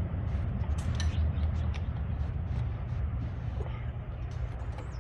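A few small metallic clicks and clinks of a hand driver and screws being worked out of a Jeep Wrangler's headlight trim bracket, over a steady low rumble.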